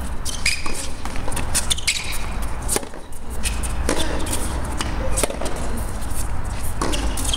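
Tennis ball being struck by racquets and bouncing on a hard court during a rally: a string of sharp pops at an uneven pace, over a steady low rumble.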